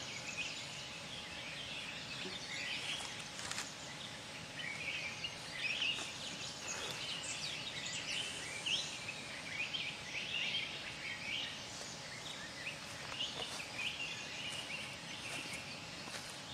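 Mixed birdsong from several small birds: many short, high chirps and twitters, overlapping and scattered over a faint steady background hiss.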